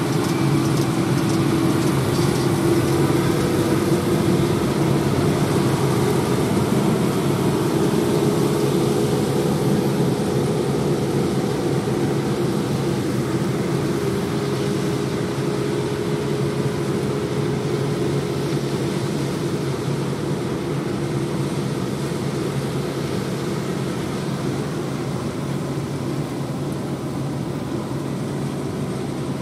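Several John Deere 8R diesel tractors pulling KMC peanut pickers, with a steady drone of engines and picker machinery. It eases off gradually through the second half as the nearest outfit moves away.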